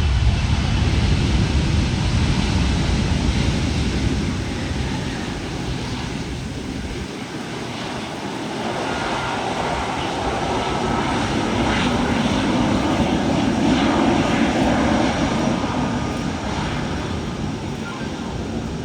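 Boeing 737 MAX 8 jet airliner's turbofan engines passing: a deep rumble that eases after about five seconds, then a higher-pitched engine noise that swells and fades again.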